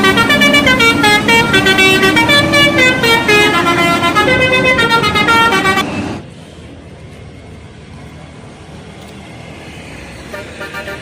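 Bus telolet horn, a set of electric-valved air horns playing a quick tune of stepped notes, loud, cutting off suddenly about six seconds in. Quieter street noise follows, and the horn tune starts again faintly near the end.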